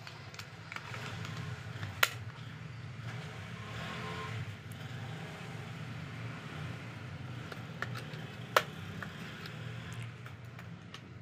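Plastic toy base being handled while its battery compartment cover is snapped shut, giving two sharp clicks over a steady low hum.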